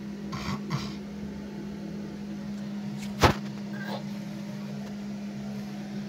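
A steady low hum with one sharp knock about three seconds in, as the porcelain toilet tank lid is handled.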